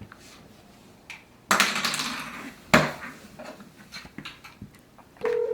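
Handling noises from a smartphone being picked up and tapped: a short rattling clatter, a sharp knock, then light taps. Near the end a steady telephone call tone starts as a call goes through.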